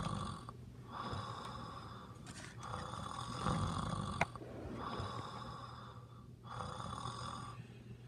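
A person snoring loudly: five rasping snores in a row, each lasting about a second, with short pauses between. A sharp click comes about four seconds in.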